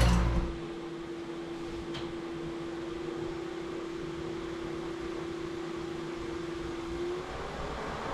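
A faint, steady one-pitch machine hum over a soft hiss, with a light click about two seconds in. Near the end the hum rises a little in pitch and fades out.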